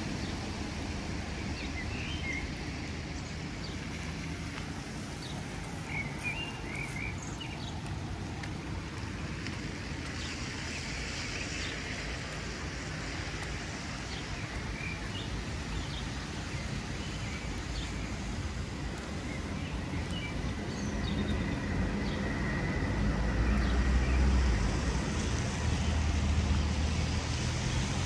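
Outdoor street ambience: a steady hum of traffic with birds chirping now and then in the first half. The traffic rumble grows louder near the end.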